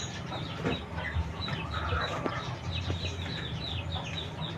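Chickens calling in the background: a steady run of short, high, falling peeps, several a second, over a low hum.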